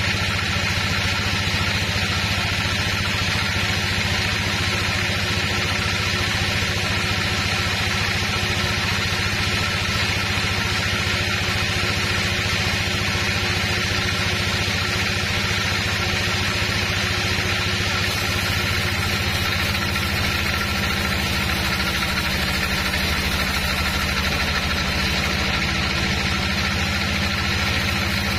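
Band sawmill running and cutting through a log, a steady machine drone from the saw's motor and blade. The sound changes slightly about two-thirds of the way through.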